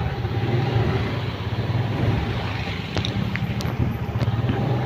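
Motorcycle engine running steadily while riding at low speed, with road and wind noise. A few short clicks come between three and four seconds in.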